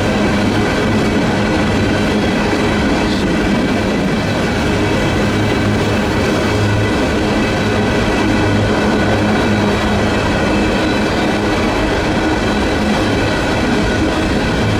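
Union Pacific coal train's cars rolling past: a steady loud rumble of wheels on rails with an even, high ringing over it.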